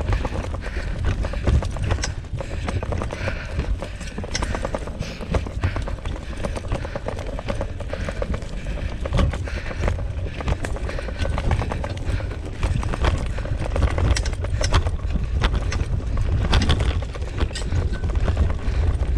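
Rhythmic footfalls and small knocks on a dirt woodland trail as a pair of Siberian huskies in harness run ahead, over a steady low rumble of movement.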